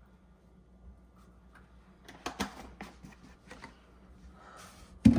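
Kitchen handling noises during cooking prep: a few sharp clicks and knocks, a brief hiss, then a loud heavy thump near the end.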